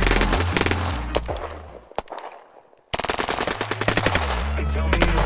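Rapid automatic rifle fire, a sound-effect stream of shots. It dies away over the first couple of seconds to near silence, with one lone shot about two seconds in, then starts again abruptly near three seconds and keeps going.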